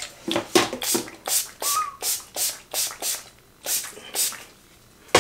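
A hand-held spray bottle spritzing onto braided hair: a quick run of about a dozen short hissing sprays, roughly three a second.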